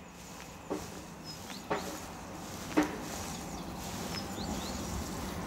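Quiet outdoor background with a small bird giving short high chirps every second or so, and three soft clicks in the first few seconds.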